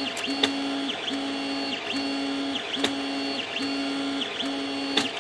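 Creality 3D printer extruder under strain: the stepper motor whines in even pushes of just under a second, and the brass drive gear clicks sharply three times. The clicking can be a sign of printing above the printer's maximum flow rate.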